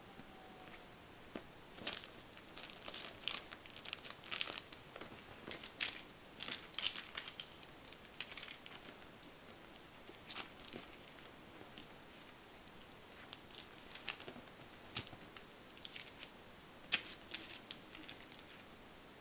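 Irregular crinkling and rustling as a kitten plays, in short scattered bursts with quieter stretches between.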